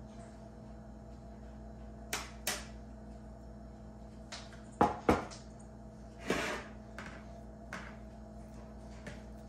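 Kitchenware being handled on a counter: a couple of light clicks, then two sharp knocks about a third of a second apart, and a short noisy rustle, over a steady low hum.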